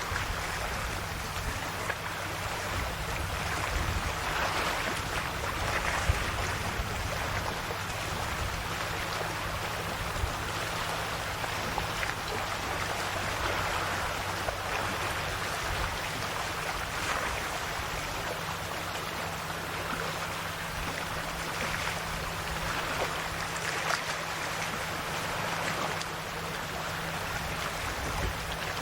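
Small, calm sea waves lapping and washing against the shore: a continuous wash of water that swells every few seconds, with a steady low hum underneath.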